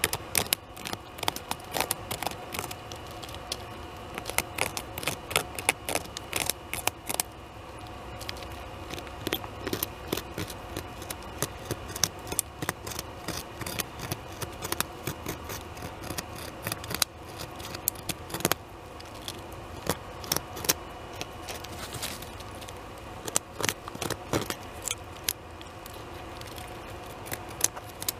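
North American beaver gnawing bark off a large tree trunk to get at the cambium beneath, its incisors scraping and cracking the wood in quick, irregular clicks, often several a second, with brief lulls.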